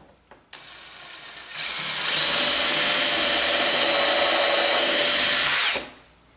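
Power drill running: it starts softly, speeds up in two steps to full speed, runs steadily for about three and a half seconds, then stops.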